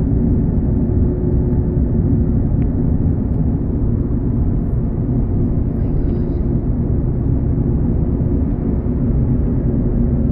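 Steady low rumble of a car driving, heard from inside the cabin: engine and road noise with a faint constant hum.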